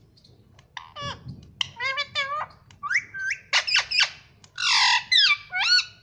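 Indian ringneck parakeet vocalizing: a quick run of short pitched calls that bend up and down, with a longer harsh squawk near the end.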